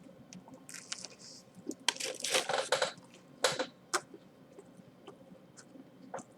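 Several bursts of crinkling, crunching handling noise, the longest a second or so of close crackling, followed by a sharp click. The sound comes from handling a crispy chicken sandwich loaded with fresh jalapeno slices.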